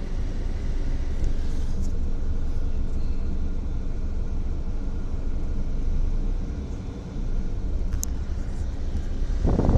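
Car's engine and road rumble heard from inside the cabin while the car creeps through traffic, a steady low drone that dips briefly about two-thirds of the way through. A single sharp click comes near the end.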